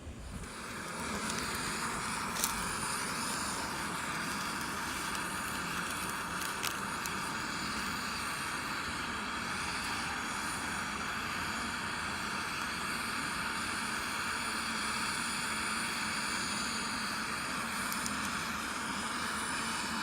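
Small Etekcity gas canister backpacking stove burning at full flame, a steady hiss that comes up about a second in, heating water for coffee until it steams. A couple of faint clicks sound over it.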